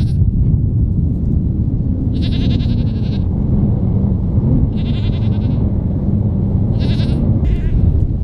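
Goats bleating: several wavering, high-pitched bleats of up to about a second each, coming roughly every two seconds, over a steady low rumble.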